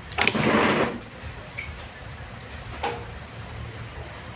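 A chair scraping across the floor as someone stands up, followed by a single light knock about three seconds in, over a steady low hum.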